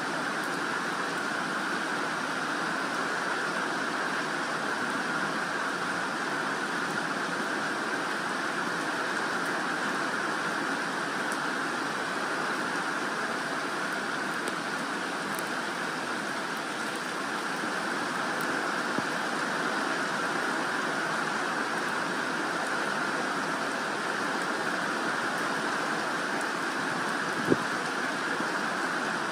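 Steady rain falling on a garden lawn, a leafy shrub and a wooden fence, an even, unbroken patter. A single sharp tap comes near the end.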